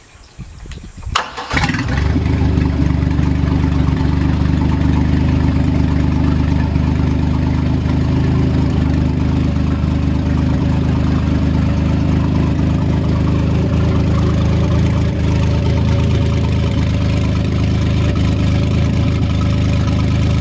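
A freshly rebuilt Volvo Penta 4.3 L GL V6 marine engine cranks briefly on the starter and fires up about a second and a half in, then runs steadily.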